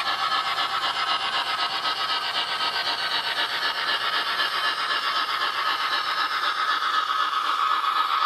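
HO scale model of a Southern Pacific AC-6 cab-forward steam locomotive running past with its freight train: a fast, even rhythmic hiss with a steady high whine underneath.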